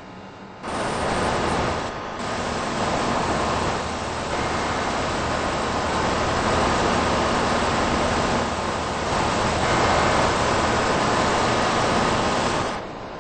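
Air conditioning unit running: a steady rush of air from its spinning fan over a low hum, cutting in abruptly just after the start and dropping to a quieter level near the end.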